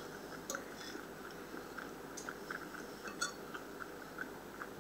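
A person chewing a mouthful of food close to the microphone: soft, faint wet mouth clicks, with a fork touching the plate now and then.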